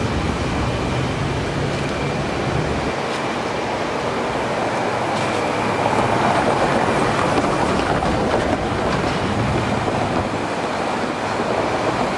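Metro Blue Line light-rail train running past on the tracks. A low hum dies away about three seconds in, and the rumble and hiss of the train go on.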